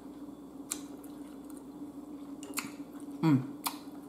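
Quiet eating: mouth and chewing noises with a few sharp clicks, and a short hummed "mm" about three seconds in, over a steady low hum.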